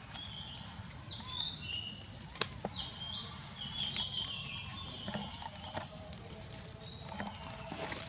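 Scattered short, high chirps and squeaks from animals, some in quick little runs, with a few sharp clicks between them over a low outdoor rumble.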